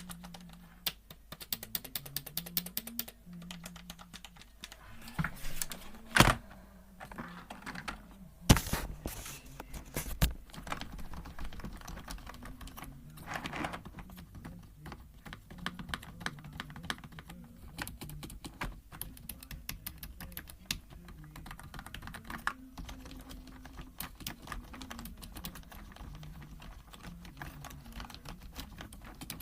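Typing on a lubricated membrane computer keyboard: a dense, irregular stream of soft key presses, with a few louder, heavier strokes around six and eight seconds in.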